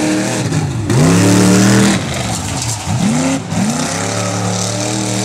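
Modified tough truck's engine revving hard while it drives the dirt course, its note dipping and climbing back up twice.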